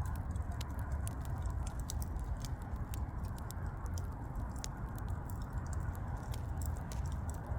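Wood fire burning: a steady low rumble with many small, irregular crackles and pops from the burning logs.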